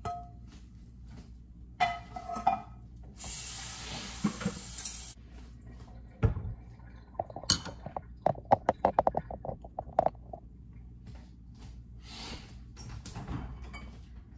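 Kitchenware clatter: a utensil scraping a skillet onto a plate, with clinks and knocks of dishes and a stemmed glass on a granite counter. A two-second hiss comes about three seconds in, a heavy knock just after six seconds, and a rapid run of clinks from about eight to ten seconds.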